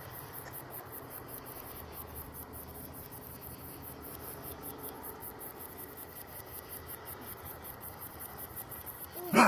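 Insects chirping steadily in a fast, even, high-pitched pulse. Right at the end a loud, short voice sound begins: the start of a hiccup.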